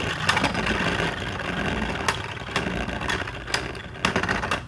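Two Beyblade Burst tops spinning in a plastic stadium: a steady whirring scrape, broken by several sharp clacks as they hit each other.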